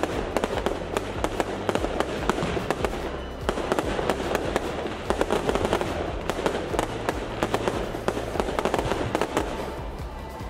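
Aerial fireworks display: a dense, continuous run of crackling and popping bursts from shells and rising comets, with music playing underneath.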